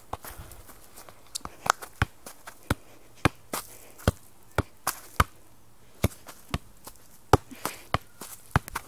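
A football being juggled and kicked on the foot during freestyle tricks: a run of sharp, irregular thuds, about two or three a second.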